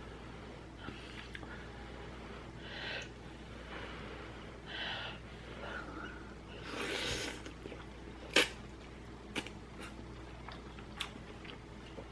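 A person eating seafood-flavoured udon-style ramen noodles: short breathy slurps and sniffs about every two seconds and chewing, with a longer slurp about seven seconds in. Several sharp clicks or taps follow, the loudest a little after that.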